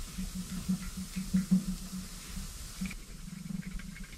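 Hand-held hex screwdriver turning a screw down into an LS engine block: a soft rhythmic clicking, about four clicks a second.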